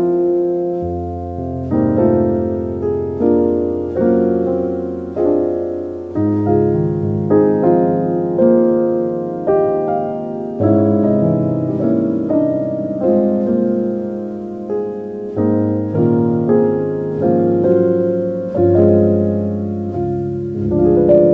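Slow, gentle solo piano music: soft struck chords that fade, over low bass notes each held for several seconds.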